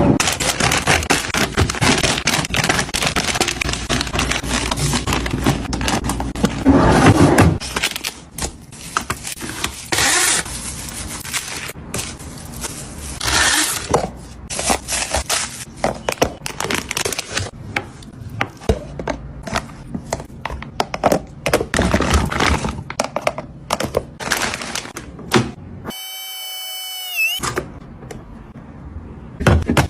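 Household items and plastic containers being handled and set down in a refrigerator: a busy run of irregular knocks, clunks and scrapes. Near the end, a short pitched tone dips and rises.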